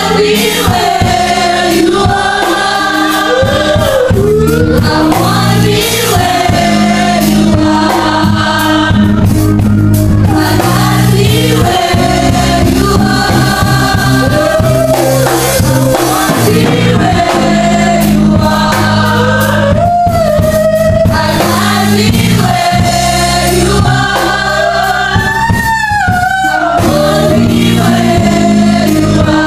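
Youth gospel choir singing into microphones over sustained keyboard chords, loud and continuous.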